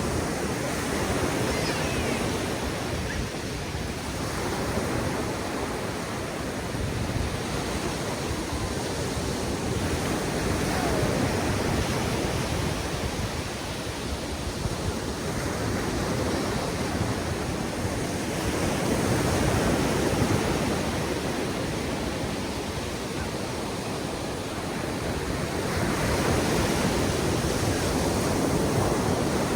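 Ocean surf breaking on a sandy beach, a continuous wash of waves that swells and eases every few seconds, with some wind noise on the microphone.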